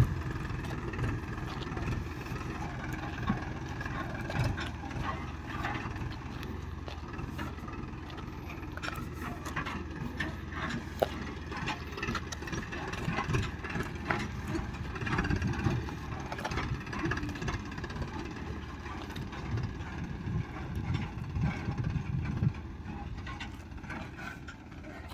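Diesel engine of farm machinery running steadily, with scattered clanks and rattles over it.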